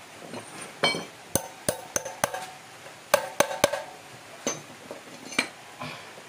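Sharp metal-on-metal taps and clinks from work on motorcycle parts, about ten in all, some in quick runs of three, each ringing briefly.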